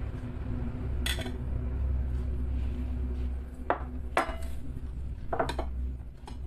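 Dinner plates being lifted and set down on a table, giving several sharp clinks and knocks, with a low steady hum underneath.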